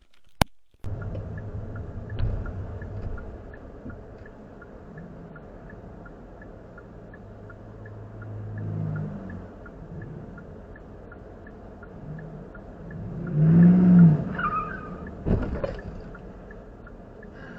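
A car's engine and road noise, heard steadily after a cut in, swelling in the low range a couple of times, with a sharp knock about fifteen seconds in.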